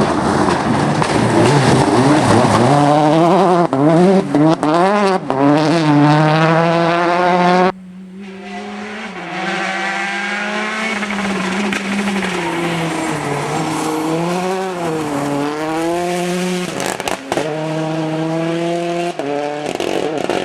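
Rally car engines at full throttle, their pitch rising and falling sharply with gear changes and lifts off the throttle. About eight seconds in the sound cuts suddenly to another car, quieter at first and then louder as it works through the gears.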